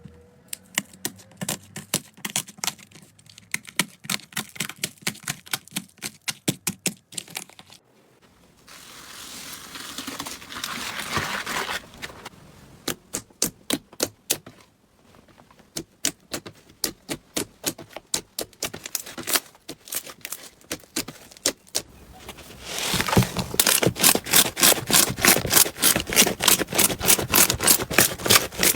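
Slime being squeezed and worked by hand, giving trains of sharp clicking and popping crackles. About a third of the way in there is a softer rustling hiss. From about 23 s to the end the clicks come fast, even and louder.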